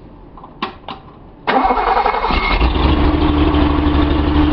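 Two clicks, then the Datsun 280Z's 2.8-litre inline-six on a test stand cranks on the starter about a second and a half in, catches within a second and settles into a steady run. It is being test-started with the distributor's pickup wired to the small and large coil connections, a trial to cure its rough, chugging running.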